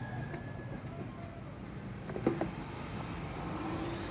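Steady low rumble of road traffic, with a single sharp knock a little past halfway.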